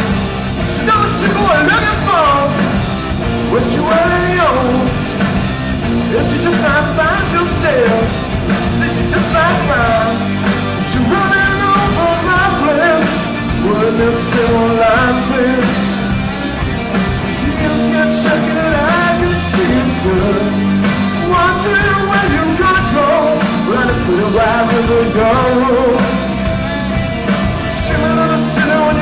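A rock band playing live: electric guitars, bass guitar and a drum kit with cymbals, a melodic line bending in pitch over the band.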